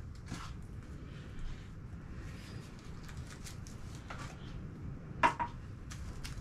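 Small handling sounds of product packets and containers being moved on a surface, faint clicks and rustles with one sharper knock about five seconds in, over a low steady room hum.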